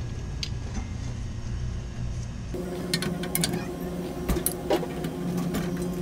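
Steady low machinery hum, then about two and a half seconds in a motor starts up and runs on with a steady hum and whine. Sharp metallic clicks and taps come over it near the middle, as a pipe wrench works the strainer fitting on copper pipe.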